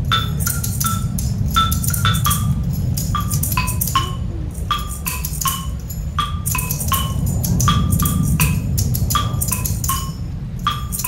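Background music: short, bright struck notes repeating in quick groups of three, often falling in pitch, over a steady low drone.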